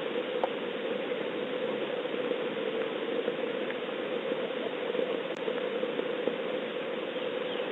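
Steady rain falling, a constant hiss heard through a Ring doorbell-style security camera's microphone, with a few faint ticks.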